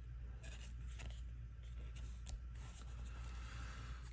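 Trading cards being handled by hand: light sliding and tapping as cards are flipped off a stack, over a steady low hum.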